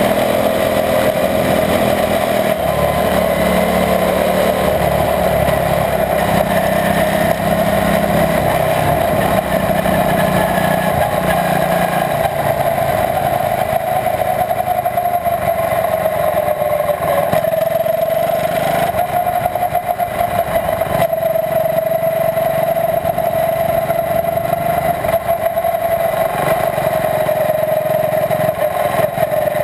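Small Honda single-cylinder engine of a quarter midget race car running hard through laps of a short oval, heard from an onboard camera. Its pitch holds fairly steady, with small dips and recoveries.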